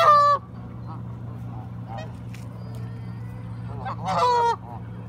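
Canada geese honking: one short honk at the start and a louder one about four seconds in, each falling slightly in pitch at the end.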